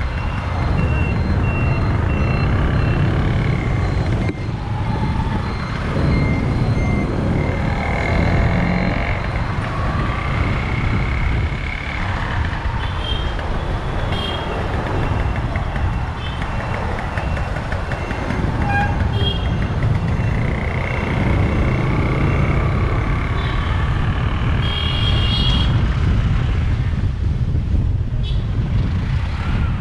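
Motorcycle engine and road rumble heard from the bike itself while riding through town traffic, with short horn toots and beeps from surrounding vehicles scattered throughout, the loudest horn about 25 seconds in.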